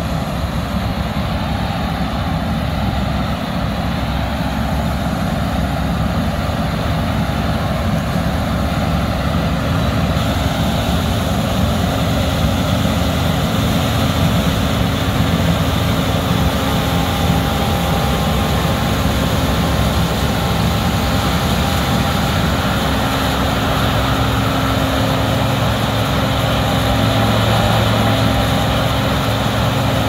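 Steady machine drone, unbroken and getting slightly louder near the end: either harvesting machinery running or a camera drone's propellers.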